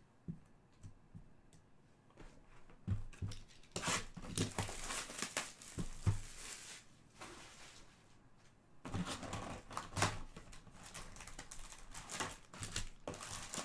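Plastic shrink-wrap being torn and crinkled off a sealed Panini Prizm trading-card hobby box, then the box opened and its packs handled. After a couple of quiet seconds with a few soft knocks, it comes in two spells of tearing and rustling.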